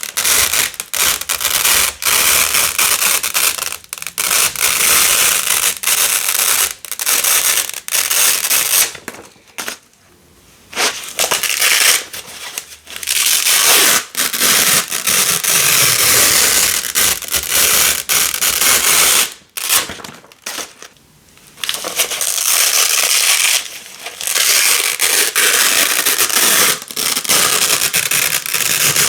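Velcro hook and loop tape being ripped apart over and over in runs of crunchy, crackling tearing, with two brief pauses.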